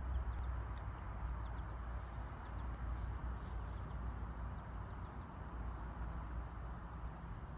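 Outdoor background of a steady low rumble, with faint, scattered high chirps of small birds.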